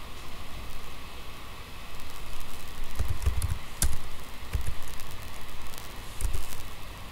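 Computer keyboard typing: a few scattered key clicks and low thumps over a steady background hiss, the sharpest click just before the middle.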